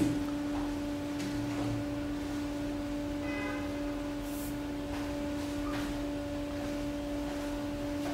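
Steady low electrical hum, a single low tone with a fainter overtone an octave above, from running machinery.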